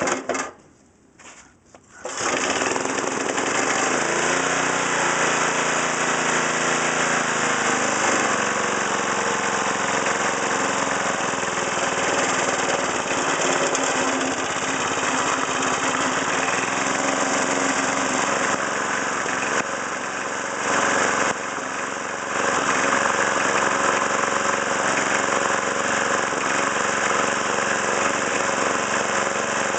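3.5 hp Briggs & Stratton lawn mower engine cold-starting in freezing weather: a couple of short sounds, then it catches about two seconds in and runs steadily.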